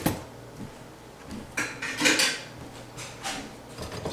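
Kitchen utensils and a batter bowl clinking and knocking: a handful of irregular knocks and scrapes, the loudest about two seconds in.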